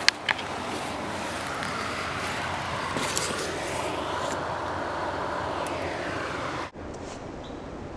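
Steady rushing of a river, a noise that sounds like distant traffic, with two sharp clicks at the start. Near the end the rushing cuts off suddenly, leaving a quieter hiss.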